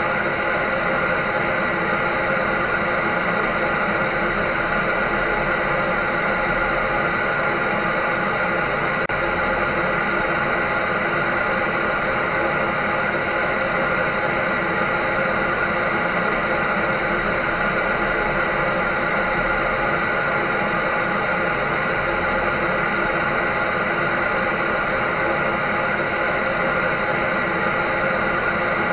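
Electric dryer running continuously: a steady whir of motor and fan noise with a few constant tones in it, unchanging in level, used as soothing white noise for babies.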